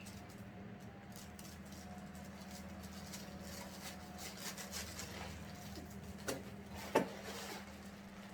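Soft rustling and crinkling of packaging being handled and opened, with two sharper clicks near the end, over a steady low hum.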